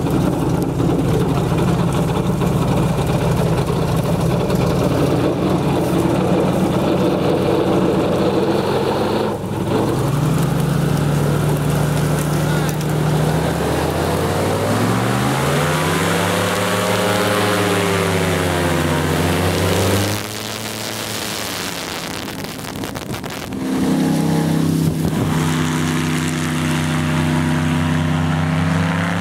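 Airboat engine and propeller running. The revs rise and fall in the middle, then drop back for a few seconds before coming up again.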